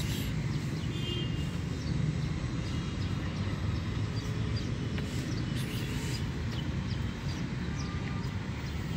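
Outdoor ambience: a steady low rumble, with birds chirping throughout in short, high chirps.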